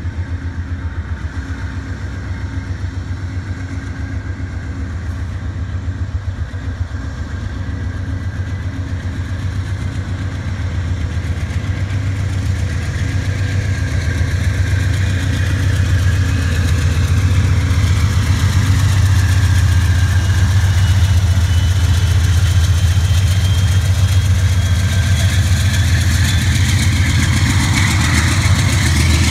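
Diesel locomotive of the Amtrak Pennsylvanian running with a deep, even throb, growing steadily louder as it pulls away, with a thin whine rising in pitch through the second half.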